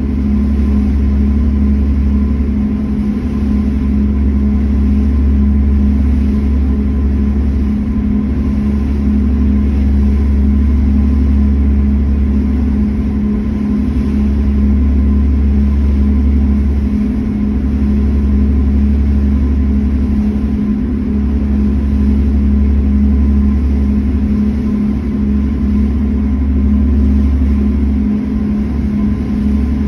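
A passenger ferry's engines drone steadily while it is underway, with a constant low hum. A heavier low rumble swells and drops irregularly over it, typical of wind buffeting the microphone on an open deck.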